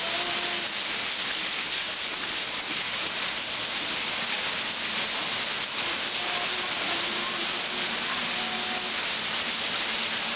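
Heavy rain pouring steadily onto a flooded yard and its standing water, an even dense hiss.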